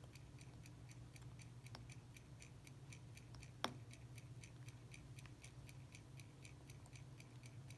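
Faint, steady ticking of a mechanical watch, about five ticks a second, with one sharper small metallic click about three and a half seconds in.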